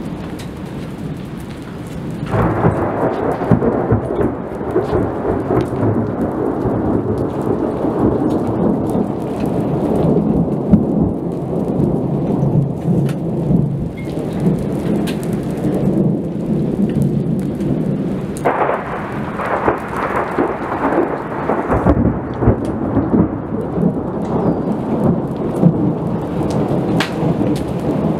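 Thunder rumbling and rolling through a thunderstorm, with rain falling. A long peal breaks in about two seconds in and another past the halfway mark.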